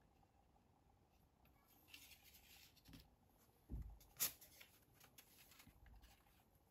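Faint rustling and sliding of paper drawings being handled on a tabletop, with a soft thump and then a sharp tap a little past the middle.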